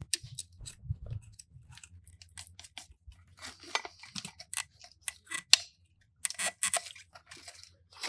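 Irregular clicks, scrapes and rustles of hands working a thin kite batten down through the blocked fuel-cooler outlet of an outboard motor, the rod rubbing against plastic and hoses. There is one sharp click about five and a half seconds in and a busier patch of scraping shortly after.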